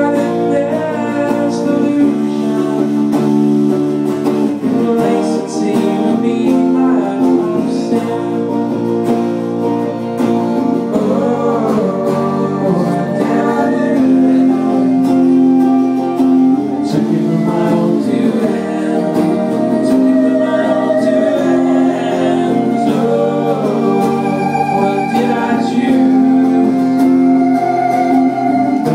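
Live band playing: strummed acoustic guitar and electric guitar, with a voice singing over them.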